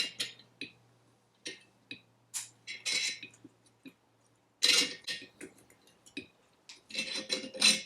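Metallic clicks and clinks of a clamp-type valve spring compressor being wound down onto a Citroën 2CV cylinder head to compress a valve spring. Scattered single clicks, with clusters of ringing clinks about three, five and seven seconds in.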